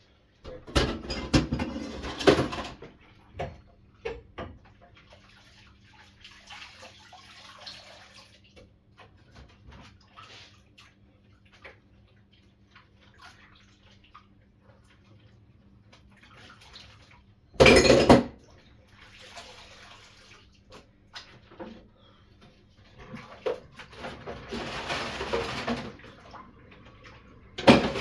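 Washing up at a sink: water runs from the tap in several bursts, the loudest a short one about two-thirds of the way through, between clinks of dishes and cutlery.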